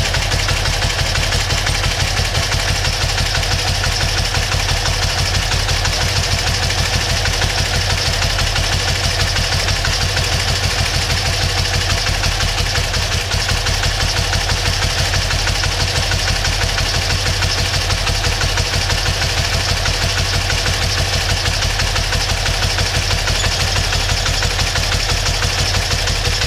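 BMW R100RS air-cooled flat-twin boxer engine idling steadily with an even, regular beat, its top end freshly overhauled and run in.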